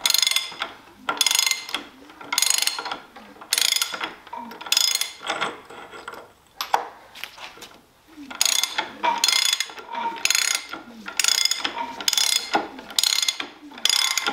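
Ratchet wrench on the crank pulley nut of a 1937 Ford flathead V8, clicking in short runs about once a second as the handle is swung back and forth to turn the engine over by hand, with a pause in the middle. It is being used to check that the valves and everything else move freely, since the engine's low compression is suspected to come from stuck rings.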